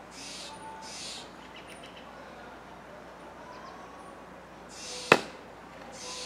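Steller's jays giving short, harsh calls, mostly in pairs. A single sharp axe strike on firewood rings out about five seconds in, louder than the calls.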